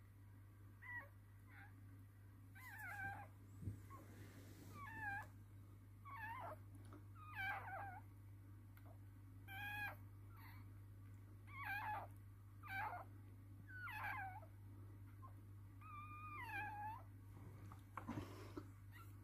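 Newborn toy poodle puppy crying in short squeaks that bend up and down in pitch, a dozen or so, a second or two apart, over a low steady hum.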